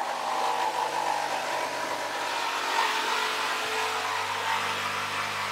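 Mafell P1cc jigsaw running steadily with an even motor hum, its blade cutting through a wooden board.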